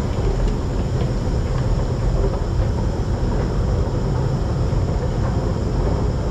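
Steady low mechanical rumble of an underground MRT station beside a running escalator, with a few faint clicks.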